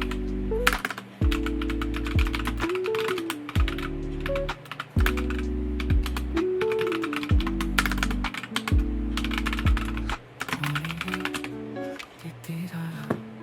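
Rapid clicking of typing on a computer keyboard over background music with a steady bass line; the typing thins out near the end.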